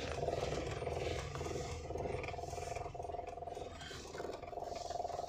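Car engine running at idle, heard inside the cabin, as the car creeps backward in reverse gear with no accelerator: a low steady drone with a steady higher tone above it.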